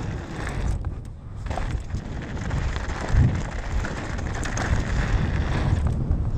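Wind rumbling on the camera's microphone over the rough, crackling hiss of a mountain bike's tyres rolling on a dirt trail.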